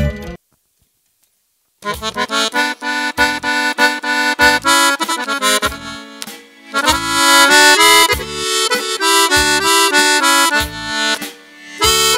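After a short silence, an accordion begins the instrumental introduction to a sevdalinka about two seconds in. It plays chords and melody over a regular bass beat.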